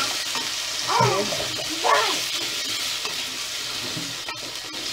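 Potato cubes sizzling in hot oil with fried onions in an aluminium pot, stirred and scraped with a wooden spoon: a steady frying hiss. Two short pitched sounds, about a second and two seconds in, are the loudest moments.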